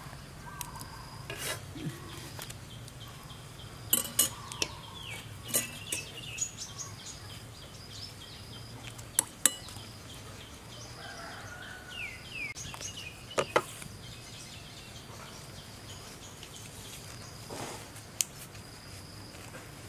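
A metal spoon clinking and scraping against a bowl and a banana leaf as sticky rice and jackfruit are spooned out, in scattered sharp taps. Behind it a steady high insect drone and a few short bird chirps.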